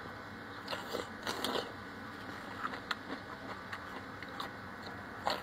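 Biting and chewing a slice of fresh cucumber close to the microphone: a cluster of crisp crunches about a second in, then softer chewing with small wet mouth clicks.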